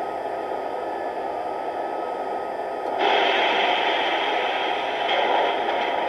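Sound decoder in an LGB model of the RhB Ge 6/6 I Crocodile electric locomotive, playing a steady hiss-like rushing noise through its small loudspeaker. The noise jumps louder suddenly about three seconds in.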